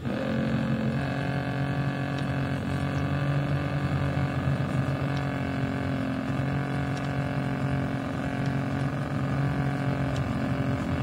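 Small electric motor of a radio-controlled model fireboat switching on abruptly and then running at a steady, unchanging pitch, a constant buzzing hum.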